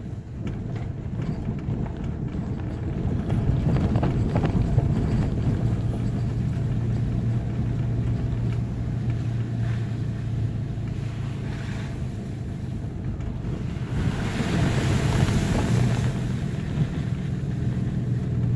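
Toyota FJ Cruiser's V6 engine running steadily, heard from inside the cabin while driving slowly over a rough dirt track, with rumble and light knocks from the uneven surface. About three-quarters of the way through, a louder hissing rush rises for a couple of seconds and then dies back.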